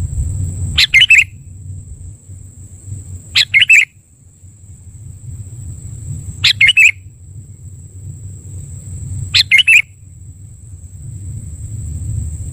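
Sooty-headed bulbul (Pycnonotus aurigaster) calling: four short phrases, each a quick cluster of notes, spaced about three seconds apart. A steady high-pitched whine and a low rumble run underneath.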